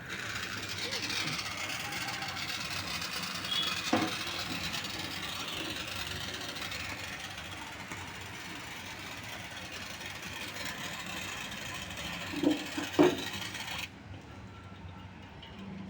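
Pressurized gas hissing as it drives CTC flushing solvent through a refrigerator condenser coil, then cutting off suddenly near the end. There are a few knocks from handling the fittings.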